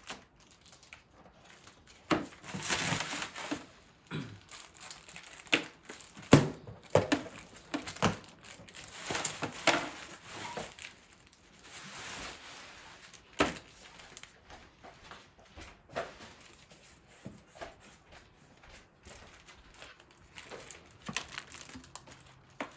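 Bubble wrap crinkling and crackling as it is pulled off a boxed printer and crumpled by hand, in irregular bursts with sharp clicks and taps.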